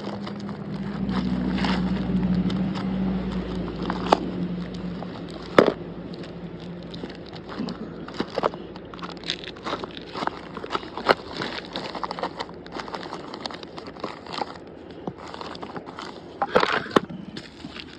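Rustling and clicking of fishing tackle and small packets being handled and sorted in a gear bag. A steady low hum runs through the first five seconds or so and then fades.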